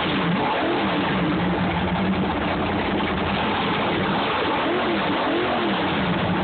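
A 468 cubic-inch big-block Chevy V8 in a drag boat, running loud through open exhaust pipes. It idles steadily and is revved briefly about half a second in and twice more around five seconds in.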